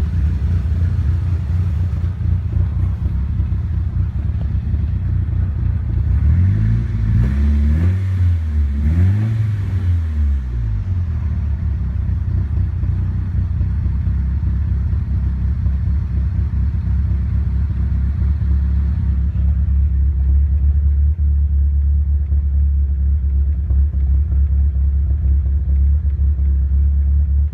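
Nissan Silvia S15's SR20 four-cylinder engine idling roughly, revved up and back down twice about a quarter of the way in before dropping back to idle. The rough idle began after the engine was taken out and put back in, and its cause is not yet found.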